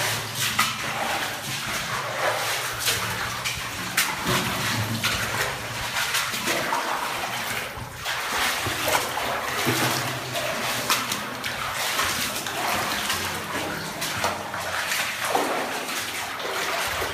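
Footsteps splashing through water on the floor of a wet rock mine tunnel, with repeated sloshing steps.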